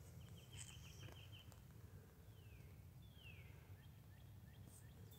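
Near silence with faint bird calls: a rapid trill of high notes near the start, then two high calls that fall in pitch, over a steady low rumble.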